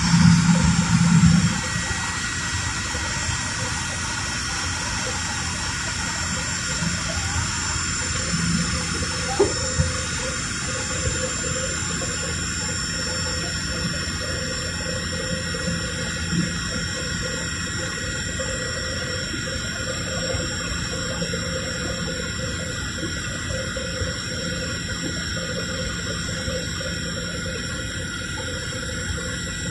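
Steady jet airliner cabin noise: the Fokker 100's rear-mounted Rolls-Royce Tay turbofans whining over the rush of air past the fuselage, with a short knock about nine seconds in.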